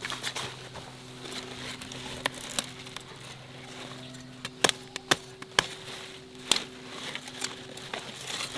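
A handful of sharp knocks or snaps at irregular intervals, about six loud ones, over a steady low hum.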